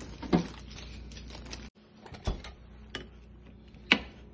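A kitchen knife chopping a serrano pepper on a plastic cutting board: sharp taps about two-thirds of a second apart, starting about halfway through. Before that, a single knock as things are moved in the refrigerator.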